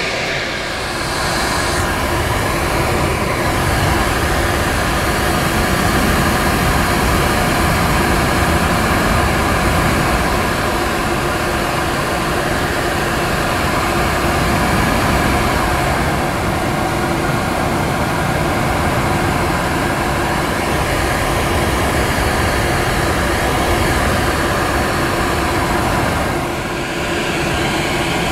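Dog grooming dryer blowing air through its hose, a loud, even rush of air with a steady motor whine under it. The rush dips briefly near the start and again near the end.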